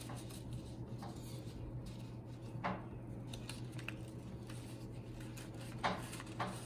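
Construction paper rustling and sliding softly as a paper strip is pushed through the slits of a paper-weaving mat, with a few brief louder rustles, one a few seconds in and two near the end.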